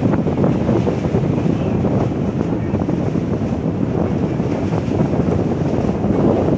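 Wind buffeting the microphone on the open deck of a moving ferry at sea, a steady, dense low rush without any distinct tones.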